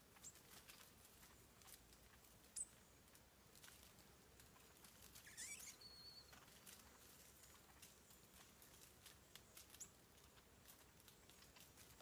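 Faint scattered ticks and rustles in dry leaf litter as birds forage over an ant swarm, with a few short high bird calls, one rising call about five seconds in.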